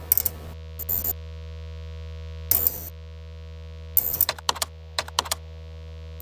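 Intro sound design: a steady synthesizer drone, broken by short bursts of sharp clicking and crackling, with a rapid flurry of clicks about four to five seconds in.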